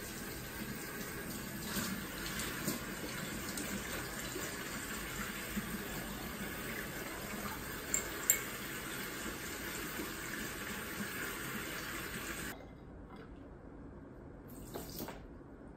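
Kitchen tap running steadily into a sink over broccoli, shut off abruptly about twelve and a half seconds in. Two sharp knocks come about eight seconds in, as the broccoli is pushed into a stainless steel pot.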